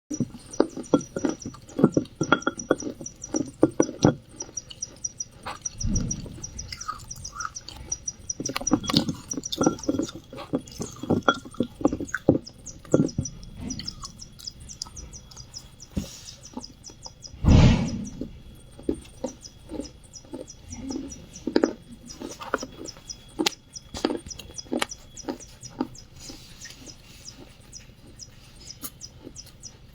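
Close-miked biting and chewing of wet clay: a dense run of irregular crunchy clicks and wet mouth sounds, with one louder, longer crunch a little past the middle.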